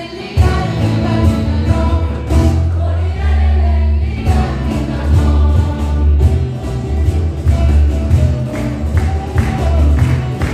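Mixed choir singing a song with acoustic guitars and bağlama accompaniment. A sharper, regular strummed beat comes forward near the end.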